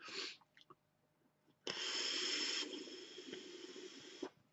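A draw on a Proto RTA rebuildable tank atomizer: air hissing through its opened airflow as it is inhaled. The hiss is louder for the first second, then softer, and stops abruptly after about two and a half seconds.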